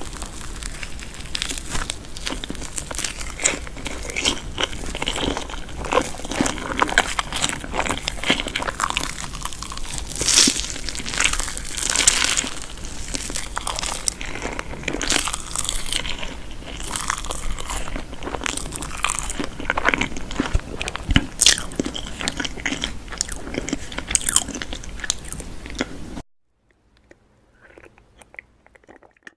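Close-miked eating of crunchy food: a dense run of crisp bites and crunching chews. It cuts off abruptly about 26 seconds in, leaving only a few faint sounds.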